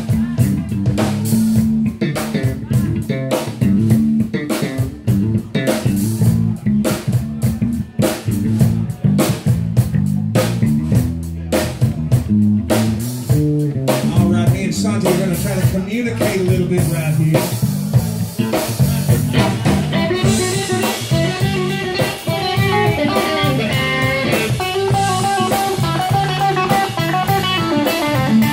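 Live electric blues band playing an instrumental passage: drum kit, bass guitar and electric guitars. About two-thirds of the way in, a lead guitar comes forward with long, bending notes over the backing.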